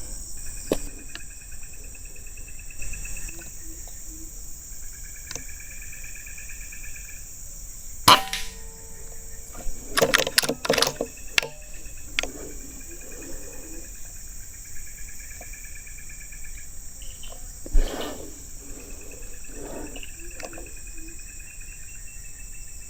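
Steady high-pitched insect buzzing, with a lower pulsing chirr that comes and goes several times. A few sharp clicks and rustles come about a third of the way in and around the middle.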